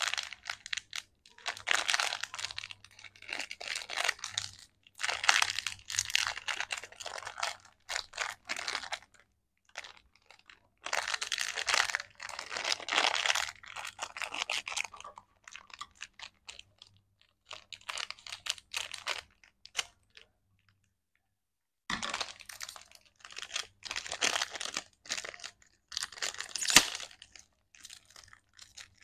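Plastic-and-foil lollipop packet crinkling and crackling as fingers handle and tear it open, in bursts of a second or two with short pauses between, and a quieter stretch of several seconds past the middle.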